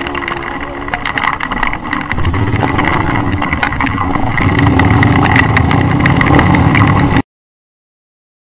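Dirt bike engines running, getting louder about two seconds in, then cutting off suddenly to dead silence a little after seven seconds.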